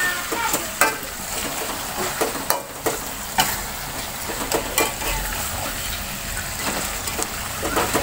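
Chicken and basil frying in sauce in a metal wok with a steady sizzle, while a metal spatula stirs and tosses them, scraping and clicking against the pan at irregular moments.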